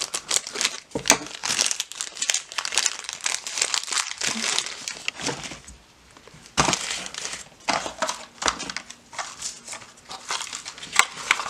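Crinkling and crumpling of a foil blind-bag wrapper as it is cut open with scissors and handled, in dense crackly bursts with a short lull about six seconds in.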